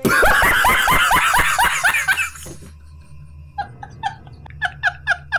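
Laughter in quick, even pulses, loud for about two and a half seconds. After a short lull it comes back as shorter, quieter bursts of giggling, about three a second.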